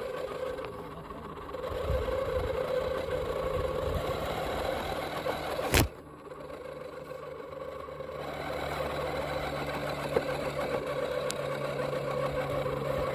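RC scale rock crawler's electric motor and gear drivetrain whining as the truck creeps up a rock step, easing off and coming back on. A single sharp knock comes near the middle, after which the whine stops for a couple of seconds before it starts again.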